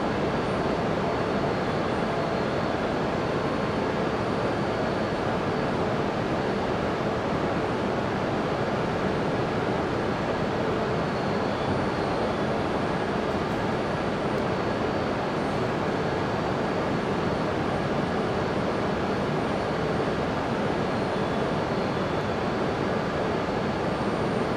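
Steady hum and hiss of a standing E5 series Shinkansen train, unchanging throughout, with a few faint steady tones in it.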